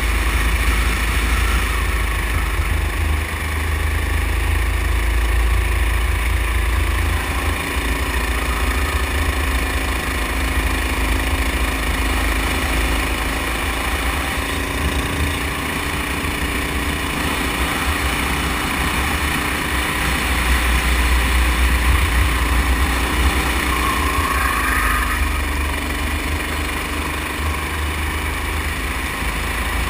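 Sodi go-kart's small engine running steadily as the kart is driven around the track, with heavy wind rumble on the on-board microphone. About three-quarters of the way through, the engine note dips and then comes back up.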